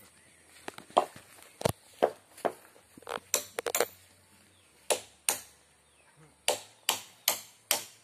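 Hammer blows on timber: irregular sharp knocks through the first four seconds, then a steady run of strikes, about two and a half a second, over the last second and a half.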